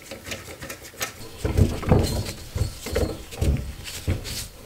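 Gloved hands fitting a rubber intake hose with a mesh air-filter cover onto a small engine's carburetor. A few light metal clicks come first, then, from about a second and a half in, a run of irregular low rubbing thumps as the hose is handled and pushed on.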